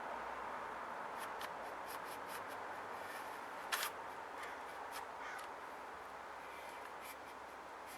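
Light clicks and rubbing of a recoil starter rope being fed through the generator's plastic recoil housing and pulley by hand, with one louder click about four seconds in, over a faint steady hiss.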